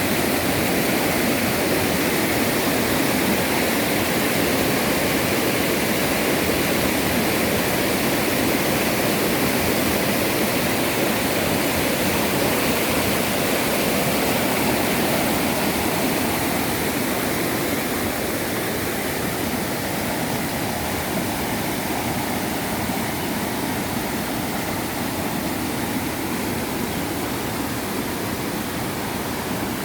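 Steady rushing water, like a stream or small waterfall, growing slightly fainter past the middle.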